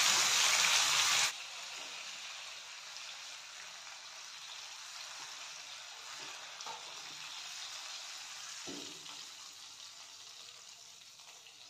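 Pomfret frying in shallow oil in a non-stick pan, a steady sizzle. The fish is fully cooked and being lifted out. The sizzle drops suddenly a little over a second in, then runs on more quietly with a couple of faint knocks from a spatula sliding under the fish.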